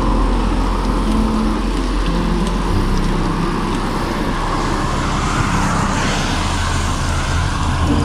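Steady road traffic noise, with a motor vehicle's engine hum coming in about three seconds in.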